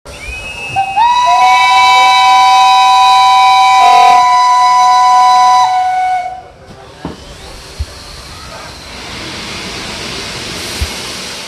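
A train's whistle sounds two notes together, loud and steady for about five seconds, then cuts off. A softer steady hiss follows.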